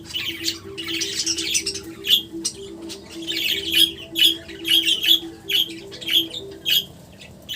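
Pet parrots chirping and squawking in rapid short calls, over a low steady hum that stops near the end.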